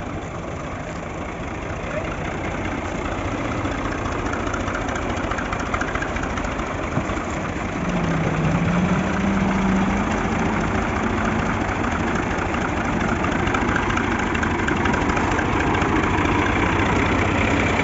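Diesel tractor engines running close by, picking up revs and growing louder about eight seconds in, then holding steady.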